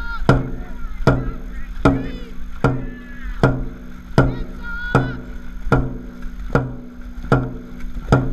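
A dragon boat drum is beaten at a steady race pace, a little faster than one beat a second, each stroke a booming hit. Short shouted calls from the crew come between the beats.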